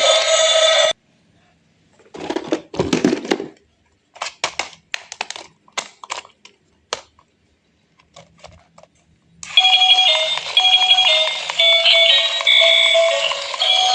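A thin, tinny electronic jingle that cuts off about a second in. Then come a few seconds of clicks and short rattles, and the jingle starts again about two-thirds of the way through.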